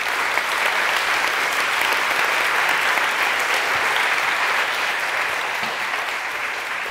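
Audience applauding: steady, dense clapping from a large crowd that eases slightly toward the end.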